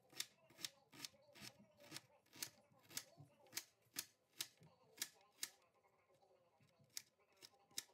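Chef's knife chopping onion on a plastic cutting board, the blade knocking the board in a steady run of about two to three sharp taps a second, pausing briefly near the end before a few more cuts.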